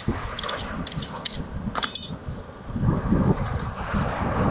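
Sea snail shells clinking and clicking as they are picked off the rocks by hand: a string of sharp clicks, the loudest about two seconds in.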